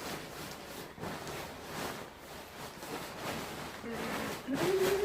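Nylon fabric of a deflating inflatable decoration rustling and crumpling as it is squashed to push the air out. A brief hum-like tone comes near the end.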